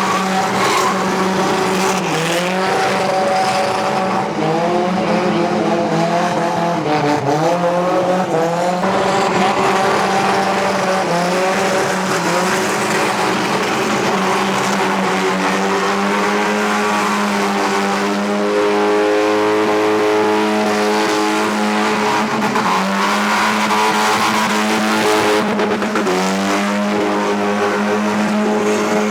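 Car engines revving hard during burnouts, their pitch swinging up and down over a steady drone, with tyres squealing on the spinning wheels.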